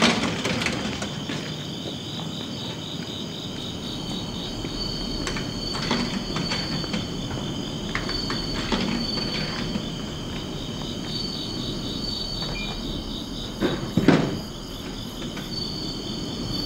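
Steady chorus of chirring insects, with a higher pulsing call that swells about every three seconds. A few light knocks come through it, and a louder knock about fourteen seconds in.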